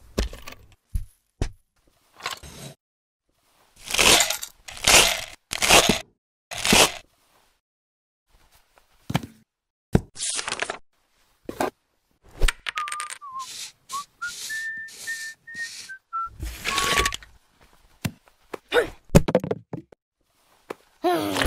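Stop-motion sound effects: a string of short clicks, taps and swishes, the loudest a cluster of swishes a few seconds in. Midway a whistled tone steps up in pitch and holds for a couple of seconds.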